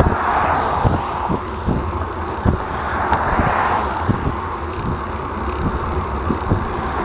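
Wind buffeting an action camera's microphone on a road bike moving at about 18 mph: a steady low rumble with irregular thumps. A car passes close by, its tyre noise swelling in the first second, with another swell a few seconds later.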